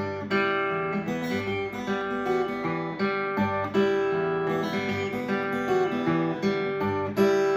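Acoustic guitar played without singing, plucked and strummed notes in a steady rhythm.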